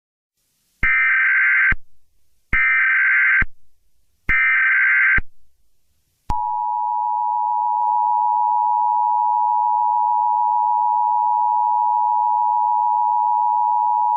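Emergency Alert System SAME header: three short, identical bursts of screeching digital data tones. About six seconds in, the steady two-tone EAS attention signal begins and holds at an even level.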